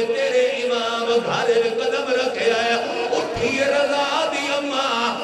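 A crowd of male mourners chanting a lament together, many voices on long held notes, during matam (chest-beating).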